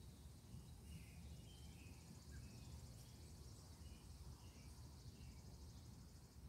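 Near silence: faint outdoor ambience of scattered bird chirps and a steady insect trill over a low rumble.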